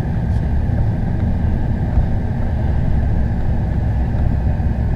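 Steady low rumble of a vehicle driving slowly, heard from a camera mounted on the vehicle: engine and road noise with no sharp events.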